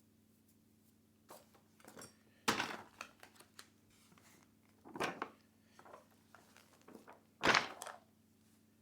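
Parts of a radio-controlled touring car kit being handled and set down: scattered light knocks, with three louder knocks about two and a half seconds apart.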